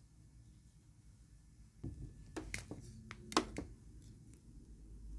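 Light handling noise: a few irregular clicks and taps as a small satin pillow and its stuffing are worked by hand at a sewing machine, the sharpest one about three and a half seconds in, over quiet room tone.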